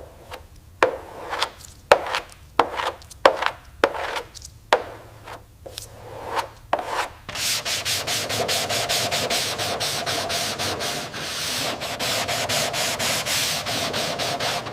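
Hand sanding strokes on a surface: about ten slow, separate strokes over the first seven seconds, then fast, continuous back-and-forth rubbing.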